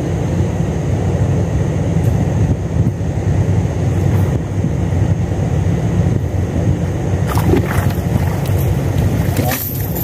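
Small boat's engine running steadily. A couple of brief splashes and rustles near the end as the cast net is hauled out of the water.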